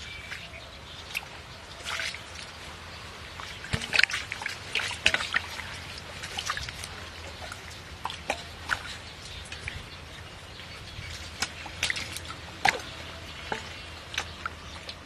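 Muddy ditch water being scooped and poured with steel bowls: irregular splashes, pours and drips, with the sharpest splashes about four to five seconds in and again near the end.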